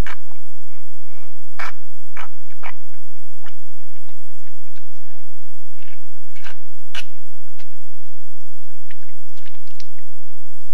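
A bull moose feeding at a muddy swamp lick, muzzle down in the mud, making irregular short slurping and chewing noises in scattered clusters. A steady high hiss runs underneath.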